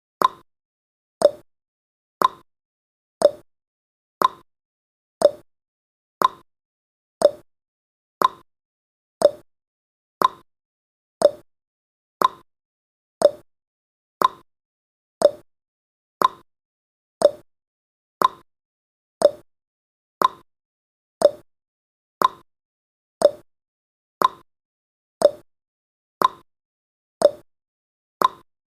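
Countdown timer's ticking sound effect: a short click about once a second, alternating between a higher and a lower tick like a clock's tick-tock.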